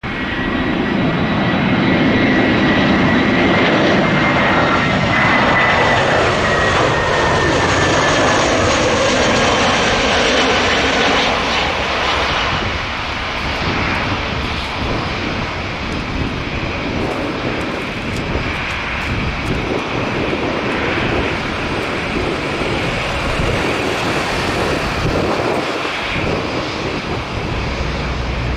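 Airbus A320-214's CFM56 jet engines as the airliner passes the observer: a loud engine whine whose tones slide down in pitch over the first several seconds, followed by a steady, rougher jet rumble as it moves away.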